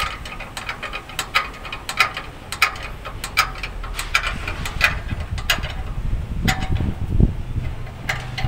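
Irregular sharp metallic clicks, about one or two a second, of a hand tool working on a truck's brake chamber assembly, with a low thud about seven seconds in.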